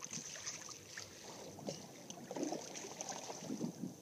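Water lapping and sloshing irregularly against the hull of a small boat, with light wind on the microphone.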